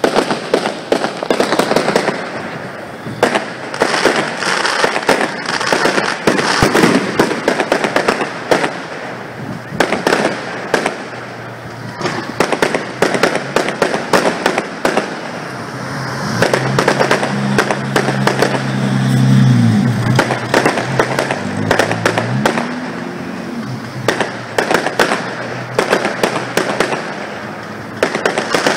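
Fireworks display: rapid bangs and crackling bursts one after another. A low, wavering droning tone sounds under them through the middle stretch.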